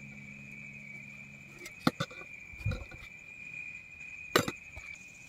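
A steady high-pitched tone with a low hum that stops about a second and a half in, and a few sharp knocks, the loudest about two seconds and four and a half seconds in.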